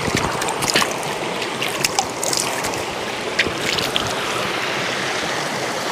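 Small stream running steadily over rocks, a constant rush of water with short splashy gurgles scattered through the first few seconds.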